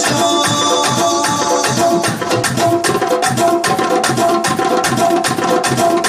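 Live band music: tabla and hand drums played in a fast, steady rhythm under a sustained electronic keyboard melody.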